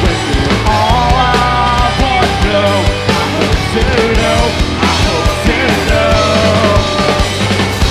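A rock band playing a song live, with a steady drum beat, bass and a melody line on top.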